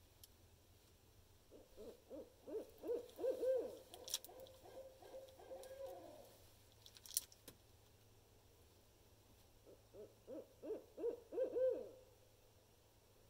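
Barred owl hooting: a rapid run of hoots that grows louder for about four seconds, then a second, shorter run about ten seconds in.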